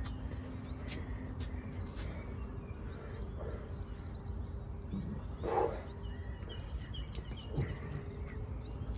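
Birds chirping and singing over a steady low outdoor rumble, with a run of quick repeated high notes in the second half. One short, louder sound comes a little past halfway.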